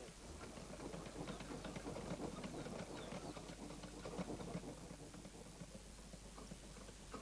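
Irregular crackling, clicking and light knocking at a small charcoal forge where a bar of copper for khaen reeds is being heated soft for hammering.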